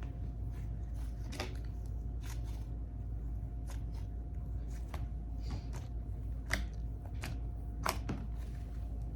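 Slime being squeezed and poked by hand, giving scattered small clicks and pops, with two louder pops about six and a half and eight seconds in, over a steady low hum.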